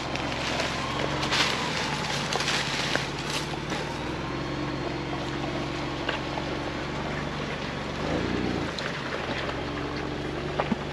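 Ford Bronco engine running at low speed as the 4x4 crawls over a rutted dirt trail, with a brief change in engine note about eight seconds in.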